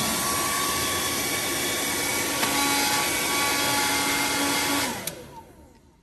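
Conair handheld hair dryer running steadily, blowing hot air into a refrigerator's vent holes to melt ice built up around the cooling fan. About five seconds in it is switched off and its motor winds down with a falling whine.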